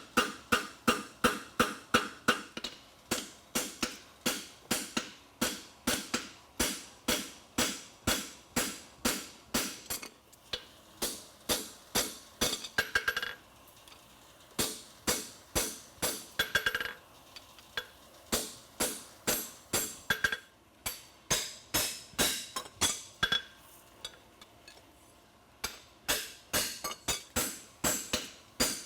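Hammer blows on a steel horseshoe at the anvil, about two to three ringing strikes a second with a few short pauses. The farrier is shaping the shoe over the anvil horn, working from the toe toward the quarter.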